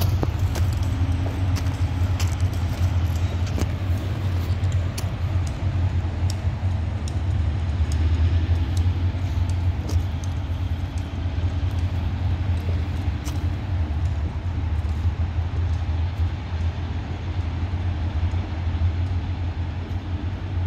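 Diesel switcher locomotive running slowly as it approaches: a steady low rumble with faint engine tones above it. Scattered sharp clicks are heard over it.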